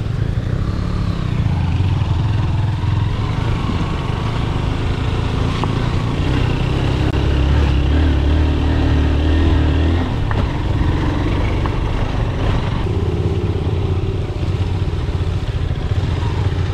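Motorcycle engine running as the bike rides along, its note rising and falling, loudest a little past the middle.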